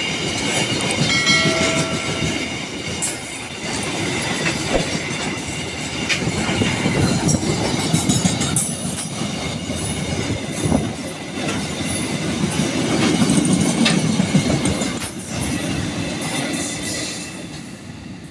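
Freight train of fuel tank wagons rolling past, its wheels clattering over the rail joints with a steady rumble, fading near the end as the wagons move away.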